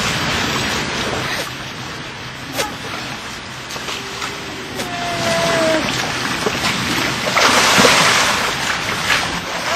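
Swimming-pool water splashing and sloshing around inflatable floats, with a louder burst of splashing about three quarters of the way through.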